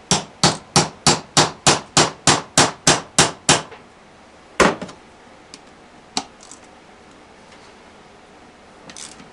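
Hammer blows on a small socket set over a fastener of a transmission case, metal on metal: about a dozen quick, even strikes at about three a second, then one more blow a second later and a few light taps near the end.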